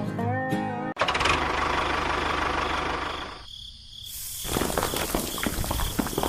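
Music for about a second, then a sudden cut to a small model engine running with a fast rattle. About halfway in it drops away for a moment, then picks back up.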